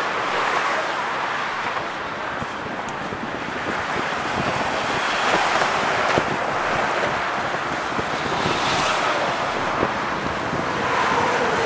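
Wind rushing over the microphone on top of steady road-traffic noise from the bridge's roadway, with a few light knocks.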